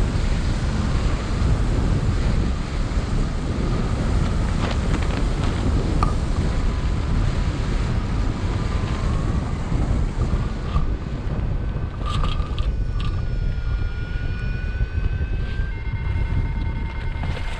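Wind rushing hard over the microphone in flight on a hang glider, a steady loud buffeting. Faint thin steady tones sit under it, one rising slightly in pitch about halfway through, with higher ones joining near the end.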